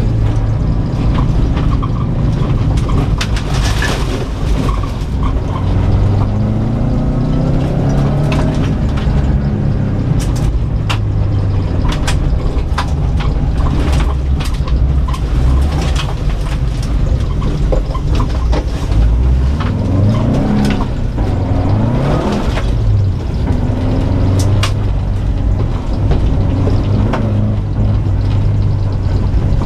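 Subaru Impreza WRX STI's turbocharged flat-four heard from inside the cabin under hard driving, revving up and falling back repeatedly through gear changes. Many sharp clicks and knocks of stones and mud striking the body and underside.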